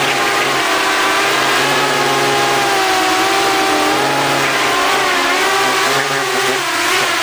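FPV racing drone's electric motors and propellers whining, the pitch drifting up and down with the throttle, with a brief drop about six seconds in.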